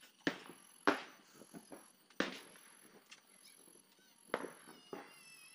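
Firecrackers going off, about five sharp bangs spread irregularly over a few seconds, each dying away quickly.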